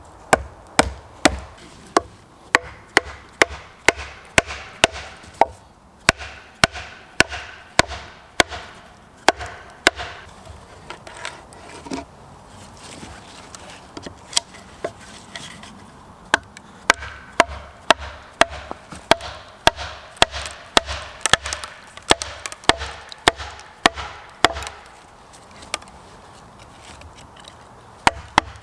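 An axe chopping wood with quick, sharp strokes, about two a second, in runs broken by short pauses.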